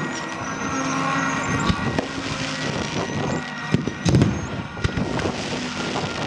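RC model warplane engines running together, with pyrotechnic bangs going off several times. The loudest bang, about four seconds in, has a deep thump.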